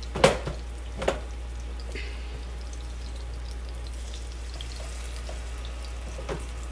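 Turkey necks searing in hot olive oil in a pan, a steady sizzle as they brown. Two sharp knocks sound near the start, about a second apart, and a faint one near the end.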